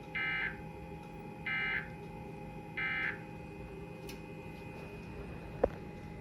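Emergency Alert System end-of-message data tones: three short, identical warbling digital bursts about a second and a quarter apart, marking the close of the alert. A single sharp click follows near the end.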